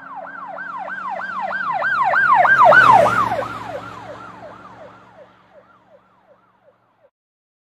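Emergency vehicle siren going by: a fast rising-and-falling yelp, about three sweeps a second, over the low hum of the vehicle. It grows louder to a peak about three seconds in, drops in pitch as it passes, then fades away.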